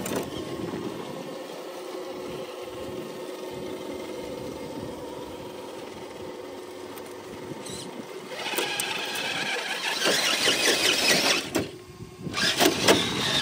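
Six-wheeled RC rock crawler's electric motor and drivetrain whining steadily as it climbs rock. A louder, harsh squealing stretch comes in about eight and a half seconds in and lasts some three seconds, with another short loud burst near the end.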